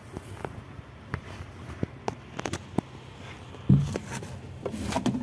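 Scattered light clicks and knocks from people moving about and handling things around a wooden crate, with one heavier thump a little past halfway.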